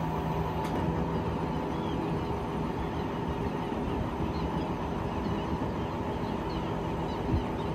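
Truck-mounted crane's diesel engine running steadily with a continuous droning hum while it holds the sailboat in its slings.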